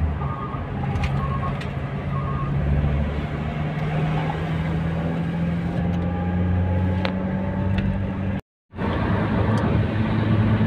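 Car running and tyre noise heard from inside the cabin, the engine note climbing slowly as the car speeds up. A few short beeps sound in the first couple of seconds, and the sound cuts out briefly about eight and a half seconds in.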